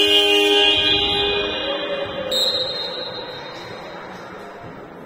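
A loud horn or buzzer blast sounding several steady tones at once, fading away over about two seconds; a shorter, higher tone follows about two seconds in.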